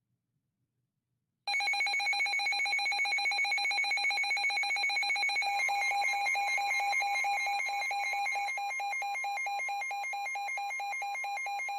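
Weather radio receiver's alert alarm: a rapidly pulsing electronic beep that starts abruptly about a second and a half in, with the steady 1050 Hz NOAA Weather Radio warning tone joining underneath about four seconds later. It signals that a new warning is about to be broadcast.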